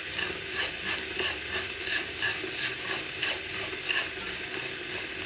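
Dry rice grains being stirred and scraped around a pan with a spatula as they are toasted over low heat, in even strokes about two a second.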